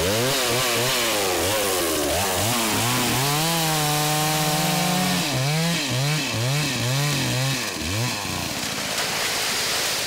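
Chainsaw revving up and down over and over while cutting a tree, held at steady high revs for about a second and a half midway through.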